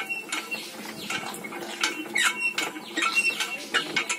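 Hand-cranked rubber sheet roller being turned, its gears and rollers giving irregular clicks and short squeaks as a wet latex slab is pressed thinner between the rollers.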